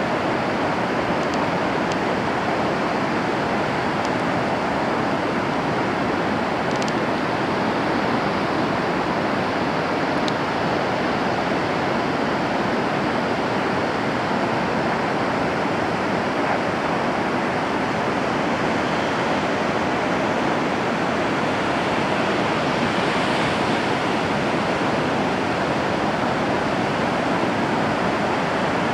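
Ocean surf breaking on a sandy beach: a steady, continuous wash of waves.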